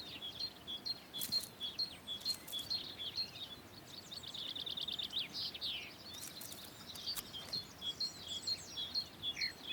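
Songbird singing: short high notes alternating between two pitches, about three a second, with a brief rapid trill about halfway through.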